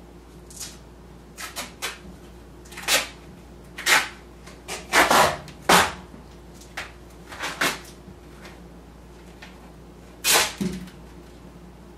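Scuffling and clothing rustling from one person restraining another seated on the floor: about a dozen short, irregular scraping noises, thickest around the middle and once more near the end, over a faint steady hum.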